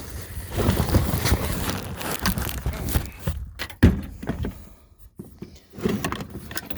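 Rustling and clattering as a chainsaw and its packing are handled out of a cardboard box, with one sharp thunk about four seconds in.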